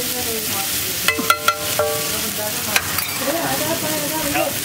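Chopped green masala sizzling in oil on a flat iron griddle while a steel spatula scrapes and stirs it. Between about one and two seconds in, the spatula clanks sharply against the griddle several times with a metallic ring, and there is one more clank near three seconds.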